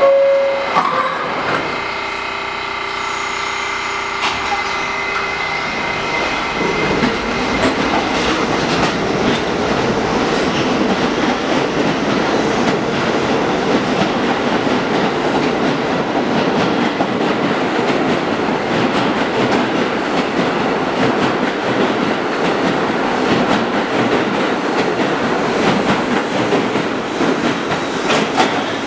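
R68 subway train pulling out of the station. Its steady hum while standing gives way, about six seconds in, to a louder rumble as it gathers speed, with the wheels clattering over rail joints as the cars pass.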